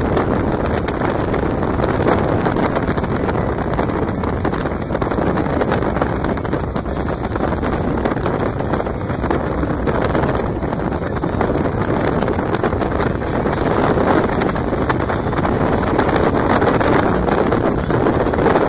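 A motorboat running at speed across open water, heard as a steady rush of wind on the microphone over the engine and the hull on the water.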